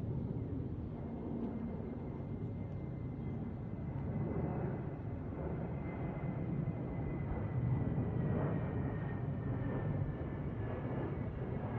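Twin-engine jet airliner passing overhead: a steady low engine rumble with a thin high whine that slowly falls in pitch as it goes by.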